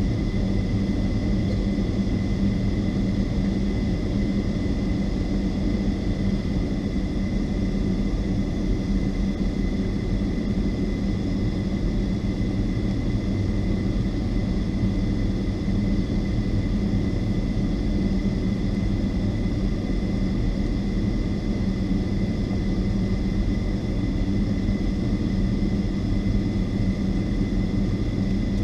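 Boeing 757-200's Rolls-Royce RB211 jet engines idling, heard from inside the passenger cabin: a steady low rumble with a thin, even whine over it, while the aircraft sits still waiting to take off.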